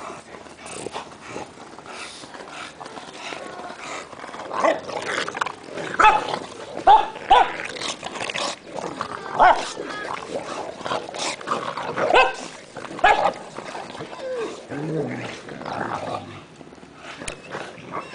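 Dogs at rough play, a Great Pyrenees, a mastiff and bulldogs, with a run of short, sharp barks, loudest and most frequent in the middle stretch.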